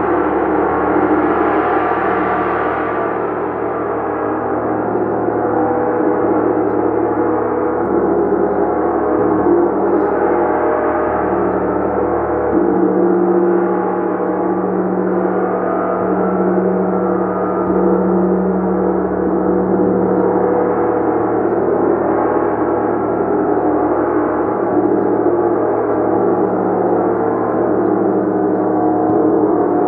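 A gong played continuously in a sustained, dense shimmering wash of many overlapping tones, with no separate strikes standing out. Its low hum swells and shifts every few seconds.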